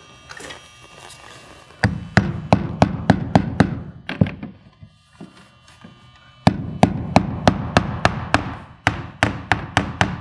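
Hammer driving nails through vinyl J-trim into the wooden gable, the nails left not super tight. Two quick runs of blows at about four a second, one starting about two seconds in and a longer one from about halfway through.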